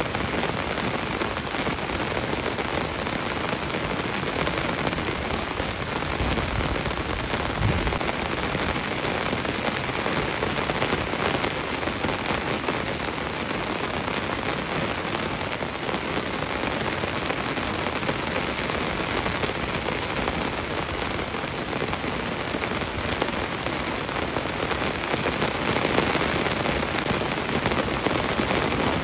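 Heavy rain falling on leafy trees and shrubs, a steady, even hiss of drops striking the leaves that neither builds nor breaks.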